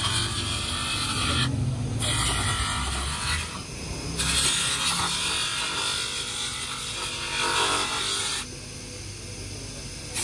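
Edge of a red plastic tail light lens being ground against a small abrasive disc on a running bench grinder, a rough grinding hiss over the motor's low hum. The hiss comes and goes as the lens is pressed on and lifted off, with short breaks near two and four seconds in and a quieter stretch near the end.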